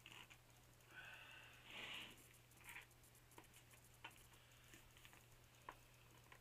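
Near silence over a low steady hum, with a few faint clicks and soft wet handling noises from hands skinning a rabbit carcass. The loudest of these is a short soft noise about two seconds in.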